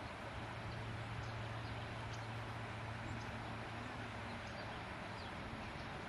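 Steady shoreline background noise with a low, even hum, and faint short high-pitched bird chirps scattered through it.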